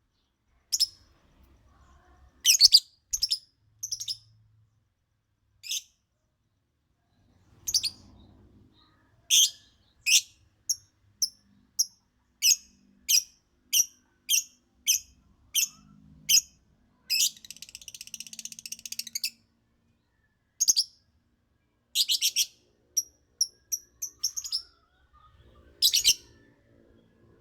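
Lovebird singing in short, shrill chirps. In the middle comes a run of evenly repeated notes, about two a second, followed by a buzzy chattering trill of about two seconds, and then more chirps.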